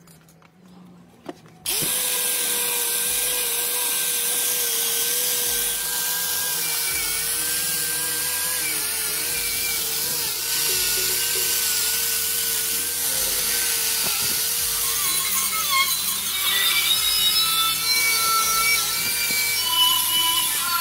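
Electric angle grinder with a wire wheel brush starts suddenly about two seconds in and runs steadily, scrubbing rust off metal fittings and pipe; its pitch wavers near the end as the load on the wheel changes.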